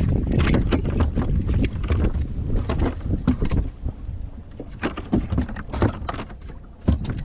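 Wind buffeting the microphone with a low rumble that eases off about halfway, over irregular knocks and clicks on the boat, with a louder knock near the end.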